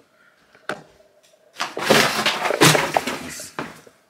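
Plastic and cardboard packaging crinkling and crackling for about two seconds, after a single sharp click about a second earlier.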